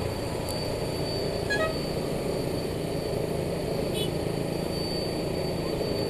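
Steady riding noise from a motorcycle moving in city traffic: an even rush of engine, tyres and wind with a low hum underneath.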